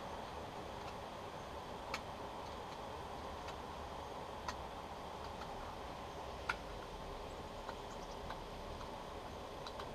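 Hand-carving a burl-wood kuksa cup: a blade cutting into the wood gives sparse sharp clicks every couple of seconds, the loudest about six and a half seconds in, over a steady hiss.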